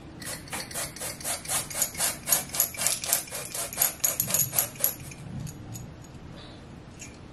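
Pump spray bottle of lace tinting spray spritzed rapidly onto a wig's lace, a fast even run of short hissing sprays at about five a second that stops about five seconds in.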